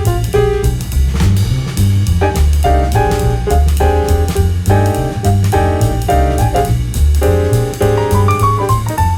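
Background music: a jazz-style track with piano, bass and drums.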